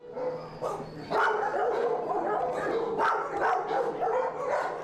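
A dog barking and whining, a run of short barks mixed with higher, wavering cries.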